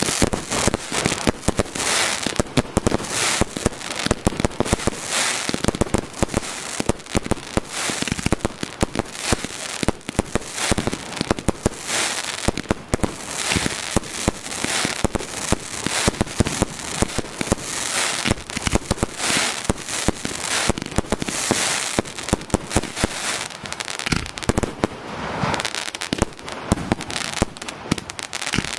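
Aerial fireworks display: shells launching and bursting in a dense, continuous run of bangs and pops, several a second, with recurring spells of hiss.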